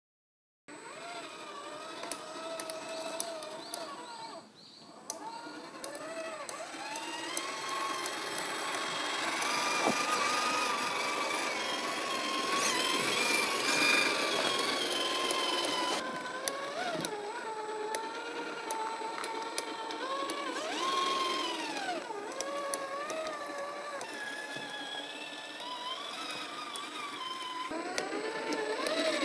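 Electric motor and gearbox whine of a 1/8-scale Traction Hobby KM5 G550 RC crawler, starting about a second in and rising and falling in pitch with the throttle as it crawls, with occasional ticks.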